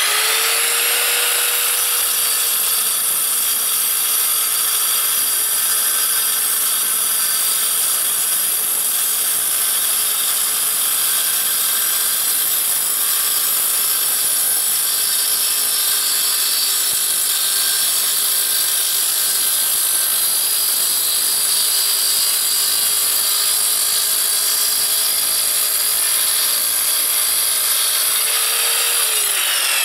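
Evolution R210SMS sliding mitre saw, with its 1500 W motor and a diamond blade, grinding steadily through a stone coping stone in one long continuous cut. It makes a dense hiss over a steady motor whine, and the motor's pitch drops just before the end.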